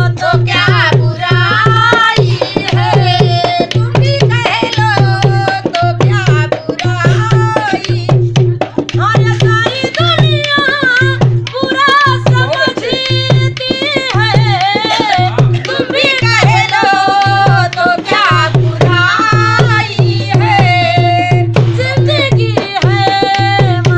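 A woman singing while beating a dholak, a two-headed barrel drum laced with rope, with its deep bass strokes in a regular beat under the voice.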